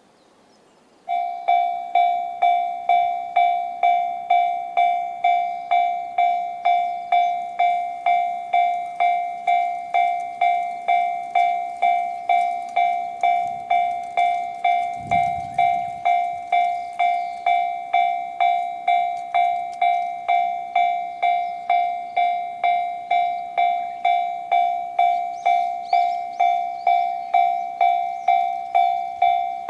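Japanese railway level-crossing alarm in the JR standard electronic bell sound. It starts about a second in and repeats one ringing tone about twice a second, warning that a train is approaching.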